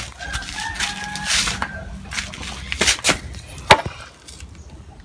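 Metal motorcycle parts and tools being handled during a swing-arm fit: a stretch of scraping, then a few sharp knocks and clicks a little under three seconds in and again near four seconds.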